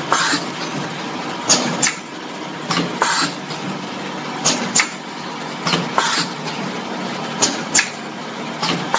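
Pneumatically driven horizontal sachet packing machine running. Its air-cylinder moulds strike in sharp double clacks, about a third of a second apart, repeating roughly every second and a half over a steady machine hum.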